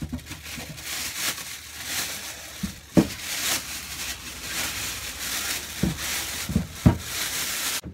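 Plastic wrapping rustling and crinkling as it is pulled off a scroll saw, with a few dull thumps, the loudest about three seconds in and a cluster near the end.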